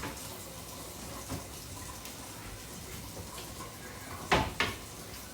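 Kitchen tap running into a sink, a steady rush of water, with two sharp knocks about four and a half seconds in.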